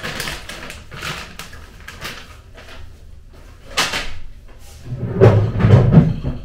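Handling noises at a kitchen counter unit: a few short knocks and rustles, then a louder, deeper clatter about five seconds in, as a cupboard or drawer is opened and shut.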